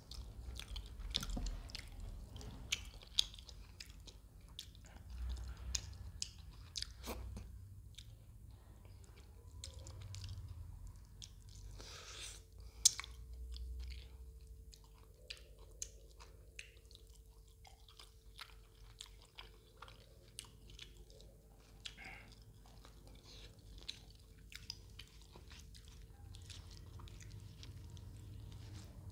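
Close-up chewing and biting of roti (chapati) wrapped round fish curry, with many short, sharp crunchy clicks from the mouth.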